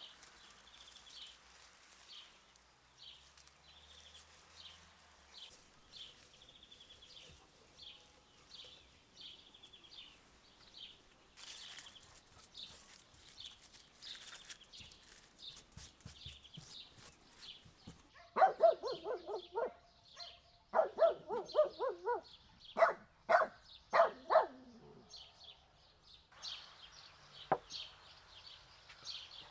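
A small bird chirps over and over at a steady pace, about two calls a second. Partway through, a dog barks loudly in a quick run of eight or so barks lasting several seconds, then stops.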